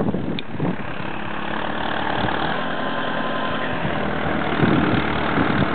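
JCB 215E backhoe loader's diesel engine running steadily.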